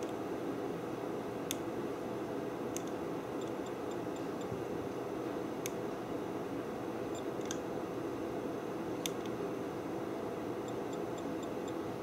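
Steady low background noise with a few faint, sharp clicks and two brief runs of faint high ticks.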